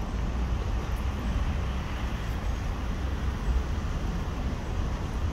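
Steady street traffic noise, heaviest in the low end, with no distinct single vehicle or event standing out.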